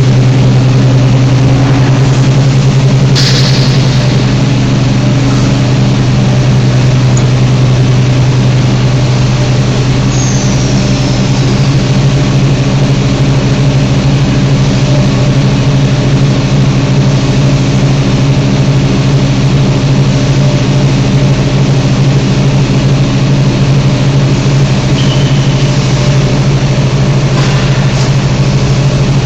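Roller hearth furnace line running: a steady, loud low hum of its motors and fans, with a few short clicks and a faint brief squeak.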